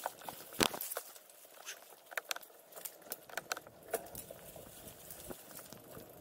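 Gravel bike rolling fast over a rocky dirt track: tyres crunching on gravel and stones, with frequent sharp clicks and rattles from the bike jolting over bumps, the loudest knock about half a second in.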